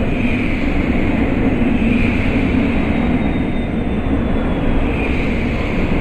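Battery-powered toy airliner's electronic engine sound effect: a loud, steady jet-like rush through its small speaker, swelling and easing slowly, with a faint high whine that slides in pitch.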